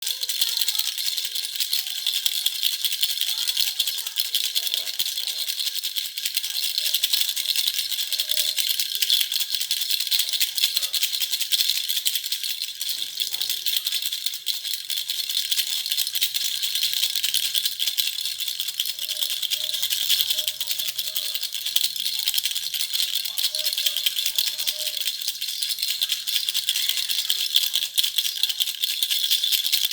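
Baby's toy rattle (jhunjhuna) shaken continuously, a fast, steady, bright rattling without pauses.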